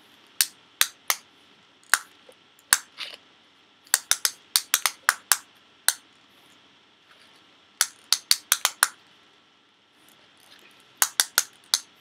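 Toothless dragon wind-up toy being wound by hand: sharp clicks from its winding mechanism, some single and some in quick runs of five or six. The clicking means the toy is taking more wind-up, not that it is breaking.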